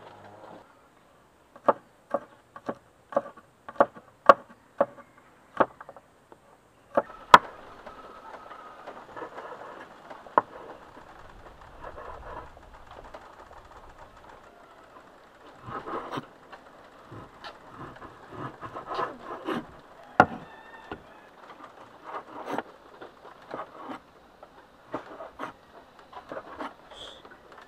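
A kitchen knife chopping on a wooden cutting board. The first few seconds hold a run of about eight sharp knocks, then come scattered knocks over soft cutting and rustling noise.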